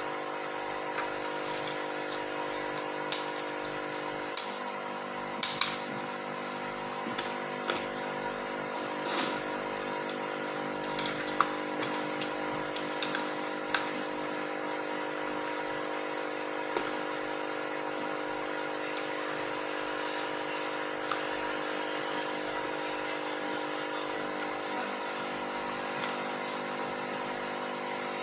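A steady mechanical hum made of several held tones, with scattered short clicks and taps over it.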